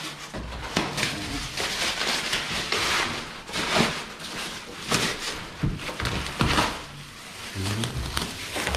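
Cardboard packaging and foam and plastic wrapping rustling, crinkling and scraping as a tempered glass tabletop is unwrapped, with irregular knocks of the stiff cardboard sheet being folded back.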